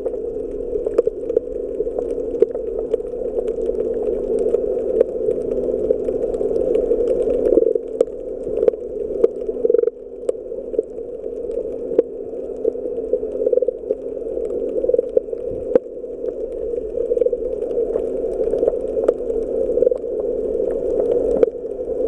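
Underwater sound heard through the camera: a steady muffled hum with many scattered sharp clicks and crackles.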